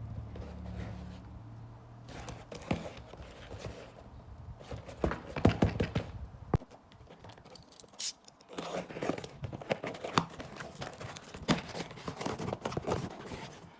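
Packaging being handled and opened while unwrapping photocards: irregular rustling, crinkling and tearing with a few sharp taps.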